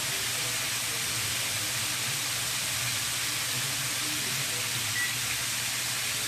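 Chicken tenders deep-frying in hot oil in a stainless steel pan: a steady, even sizzle, the oil on medium-high heat at what the cook calls a perfect frying temperature.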